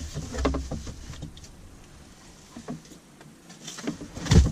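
Handling noises as a cardboard box and a plastic shop vacuum are moved about: light knocks and rustles in the first second, then one heavy thump near the end as something is set down.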